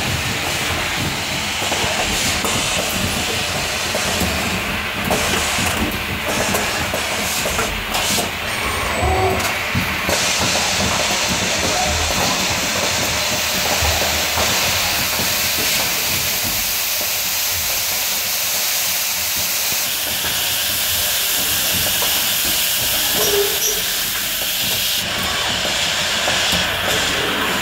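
Automated tray-handling production line running, its conveyors and pneumatic grippers giving a steady machine hiss. There are scattered clicks in the first ten seconds or so, and the high hiss grows stronger from about ten seconds in until a few seconds before the end.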